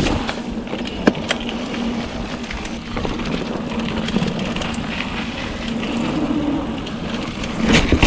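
Trek Fuel EX mountain bike rolling along a dirt trail: steady tyre and riding noise with a few sharp knocks and rattles, one about a second in and another near the end.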